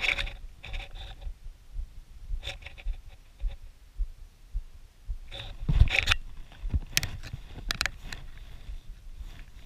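Low, unsteady wind rumble on the microphone, with irregular short scraping and rustling sounds, the loudest about six seconds in.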